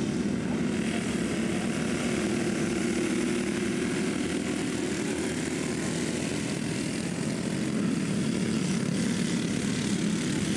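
Several racing go-kart engines buzzing together as a pack runs around a dirt oval, a steady droning that dips slightly mid-way and builds again.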